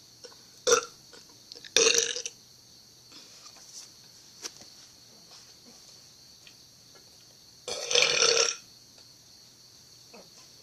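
A person burping three times: two short burps in the first couple of seconds, then a longer one about eight seconds in.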